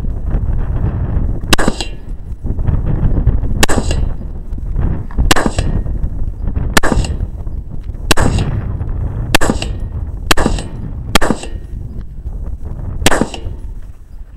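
A string of rifle shots from a Smith & Wesson AR-15 Sport in 5.56 mm fired from the prone position, sharp single reports coming roughly one every one to two seconds. A steady low rumble of wind buffeting the microphone runs underneath.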